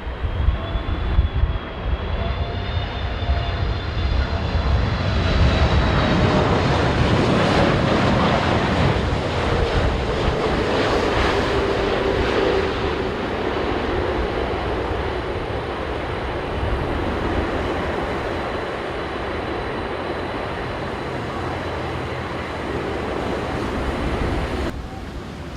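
Boeing 787 airliner's jet engines passing close on landing approach: a whine that falls in pitch as the aircraft goes by, swelling to its loudest about a third of the way in, then easing into a steady rumble. Gusts of strong wind buffet the microphone near the start.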